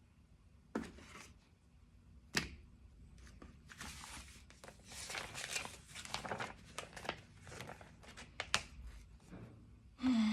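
Embroidery kit packaging rustling and crinkling as it is handled, with a few sharp clicks and taps. A dense stretch of rustling in the middle, and a louder rustle at the very end.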